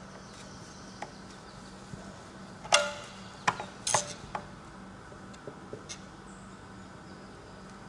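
A handful of metallic clicks and clinks as a tool is worked against the steel housing of a Danfoss KP15 refrigeration pressure switch. The loudest comes about three seconds in with a short ring, two more sharp clinks follow within about a second, then lighter ticks.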